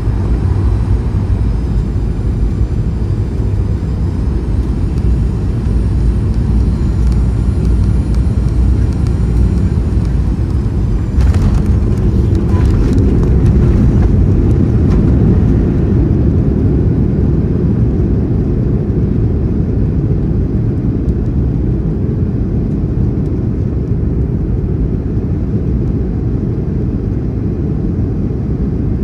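Cabin noise of a Boeing 737-900ER: a steady, loud low rumble of engines and airflow. About eleven seconds in there is a brief cluster of rattles and knocks, and the rumble swells for a few seconds before easing back.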